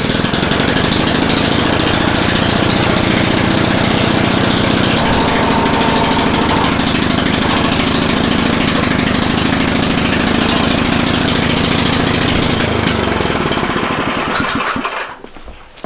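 Snowblower's gasoline engine running steadily after a carburetor cleaning cured its no-start condition. Near the end it winds down and stops.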